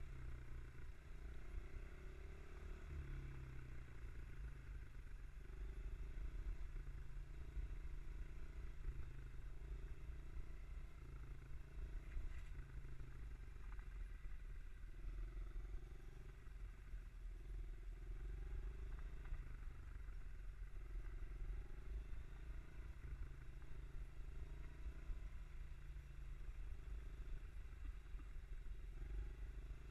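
Mini bike engine running under way, its pitch stepping up and down as the throttle opens and eases, over a low rumble from the ride.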